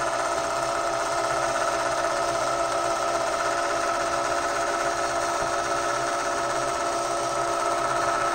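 Singer Patchwork 7285Q sewing machine's motor running at a steady speed, winding thread onto a bobbin, a constant whine.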